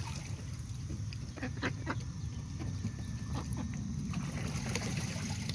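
Mallard giving a few short, soft calls over a steady low rumble.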